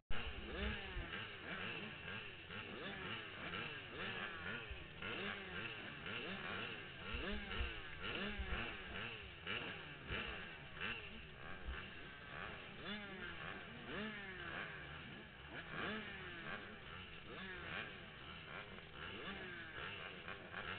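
Several two-stroke supermini motocross bikes revving at the starting gate, throttles blipped up and down over and over, the engines overlapping.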